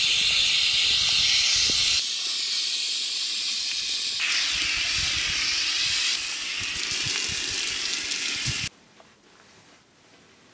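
Hose spray wand hissing as it sprays water over a horse, a loud steady spray that cuts off suddenly near the end.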